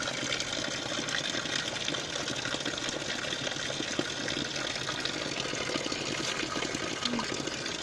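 Mineral spring water running steadily from a spout in a stone wall and splashing below it.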